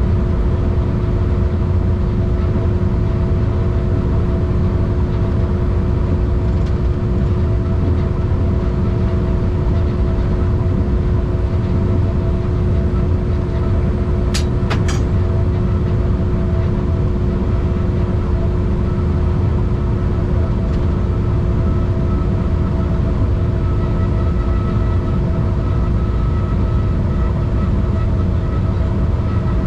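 A car driving at steady speed: constant road and engine rumble with a steady hum. Two sharp clicks come close together about halfway through.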